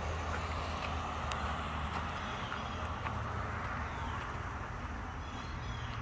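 Steady low rumble of vehicle engines, with a few faint light ticks scattered through it.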